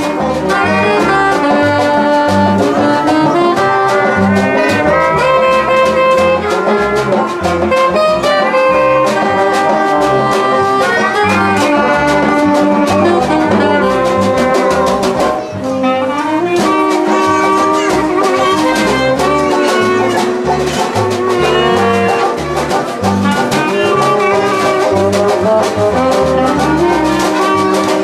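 A brass band playing a jazz tune, with trumpet and trombone over a steady bass beat, and a short lull about halfway through.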